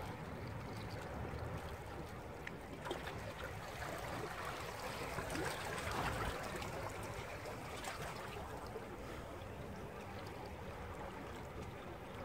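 Steady wash of sea water, swelling a little around the middle of the stretch.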